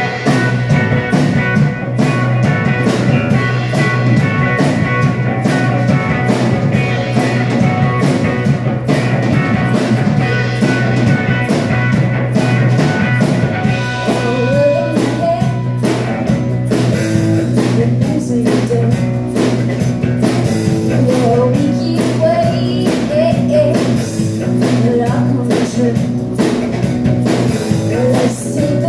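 Live rock band playing: electric guitar, bass guitar and drum kit with a steady beat, and a woman's singing voice joining about halfway through.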